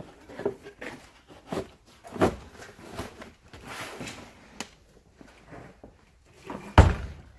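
Handling noise of tools and parts: scattered light clicks, knocks and rustles, then one loud thud near the end as something drops, taken to be a power cord falling.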